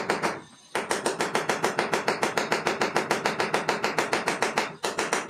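Fast, even ratcheting clicks, about eight a second with a short pause just under a second in, as a screw is driven to fasten a clamp holding flexible electrical conduit to the wall.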